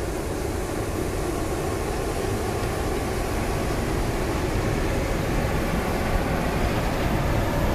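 ChS2T six-axle DC electric locomotive and its passenger coaches passing slowly on the track, a steady rumble of the running train that grows slightly louder near the end.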